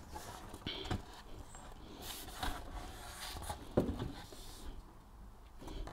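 A few light knocks and scrapes of a wooden stair tread being handled and set into position on the staircase string's support blocks, the sharpest knock about four seconds in.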